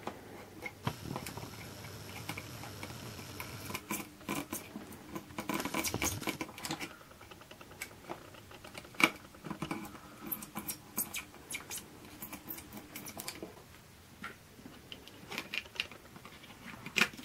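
Small irregular clicks and soft scraping of stripped copper wire and a soldering gun tip worked over circuit-board pads, cleaning off solder. A faint steady whine runs between about one and four seconds in.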